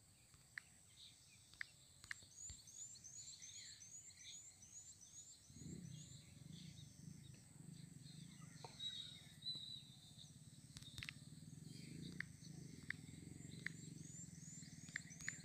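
Near silence: faint background tone with a high chirp repeating about three times a second for a few seconds, again near the end, a few faint clicks, and a faint low hum from about halfway.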